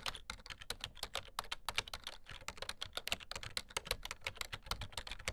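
Keyboard typing sound effect: a rapid, uneven run of key clicks.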